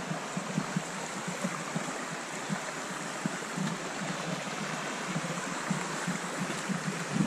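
Stream running over rocks, a steady even rush of water, with irregular soft thuds of footsteps on the track.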